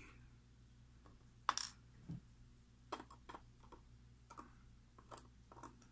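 Faint, scattered small clicks and ticks, about half a dozen: lock pins and steel tweezers tapping against a brass lock cylinder and a plastic pin tray as the pin stacks are taken out of the lock.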